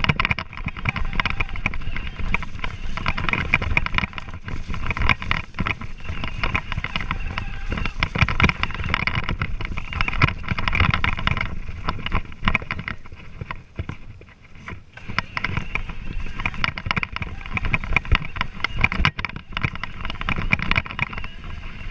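Revvi 16 Plus electric balance bike riding over bumpy grass. The motor's whine rises and falls with the throttle, and the bike rattles and knocks over the bumps, with wind buffeting the microphone. Everything briefly quietens about two-thirds of the way through.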